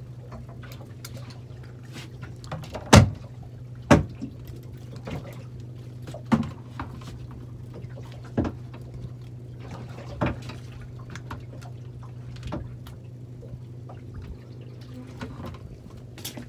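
Sea water slapping and lapping against a small fishing boat's hull over a steady low hum, with sharp knocks at uneven intervals, the two loudest about three and four seconds in.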